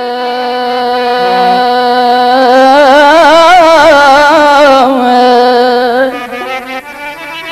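A male folk singer holds one long, loud opening note that swells into a wide vibrato over a steady drone. About six seconds in the note breaks off, and plucked strings and drum strokes start up in a rhythm.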